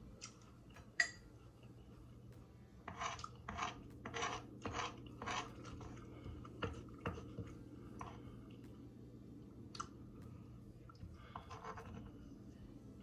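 Close-miked chewing of a crunchy hard-shell taco, with a run of about six crunches, roughly two a second, a few seconds in. Near the end a metal spoon scrapes and scoops toppings on a cutting board.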